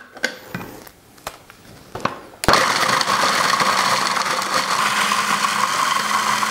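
A few light clicks, then about two and a half seconds in a food processor's motor switches on suddenly and runs steadily, its blade chopping hard gingerbread pieces into crumbs.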